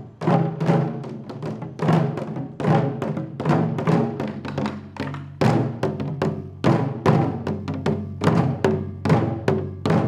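Several taiko drums beaten with wooden sticks in a steady, driving rhythm of heavy, ringing strokes, about two a second.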